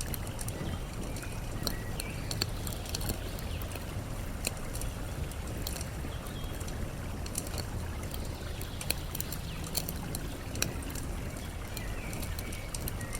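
Campfire wood crackling with scattered sharp pops, over a steady rush of flowing water. A few faint bird chirps come through now and then.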